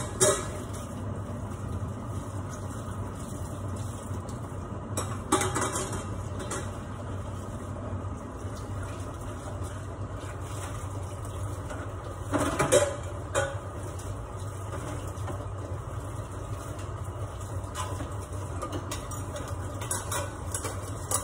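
Steady low hum of a kitchen range hood fan running over a covered wok on the gas stove, with a few clinks and clatters of dishes and utensils now and then.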